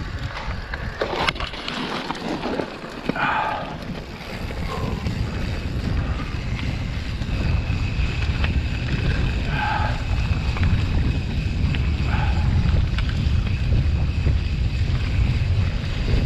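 Wind buffeting an action camera's microphone as a mountain bike rolls fast down a loose dirt singletrack, a heavy low rumble that builds after a few seconds, with the odd click and rattle from the bike over the trail near the start.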